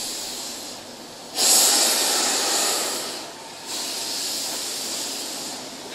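Steam hissing from a hot, standing Durango & Silverton K-36 Mikado steam locomotive, No. 481. It comes in surges: a loud surge about a second and a half in that eases off, a short lull, then steadier hissing.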